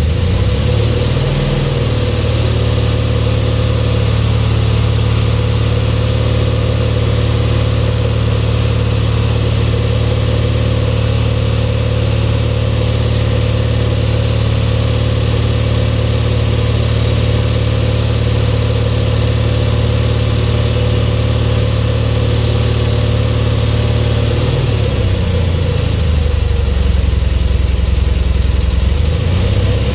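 Onan propane engine of a small Grove Stevedore mobile crane running steadily, its pitch changing briefly about a second in and again for a few seconds near the end as the crane is worked.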